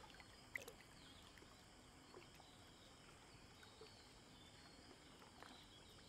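Near silence: faint ambience over still floodwater, with a few soft, small water sounds, the clearest about half a second in.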